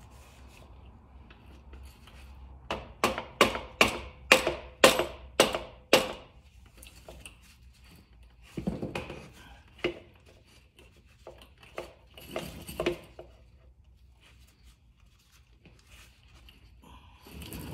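A run of about eight sharp knocks, two or three a second, from work on a motorcycle's front end, then a few softer clunks and rattles of parts being handled.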